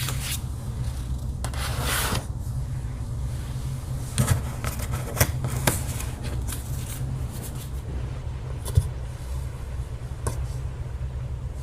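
Photocards being handled and sorted: rubbing, sliding and light tapping with a few sharp clicks. A steady low hum runs underneath.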